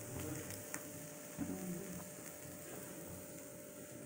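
A faint steady hum.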